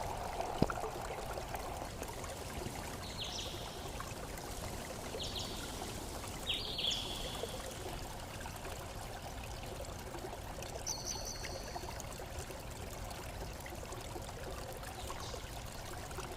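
Steady running or trickling water, with a few short high chirps about three, five, seven and eleven seconds in.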